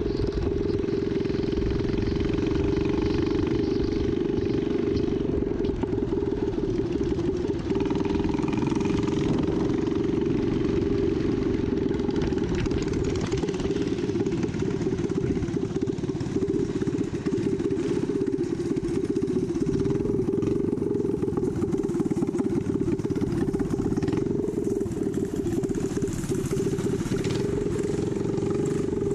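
A mini dirt bike's small engine running as it rides along the road, with wind rushing over the microphone.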